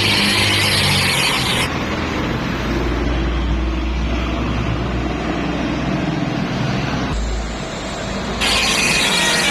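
Heavy road vehicles running and passing: a deep engine rumble under steady traffic noise, with no horn tune. The sound changes abruptly about two seconds in and again near the end, where a brighter, hissier road noise returns.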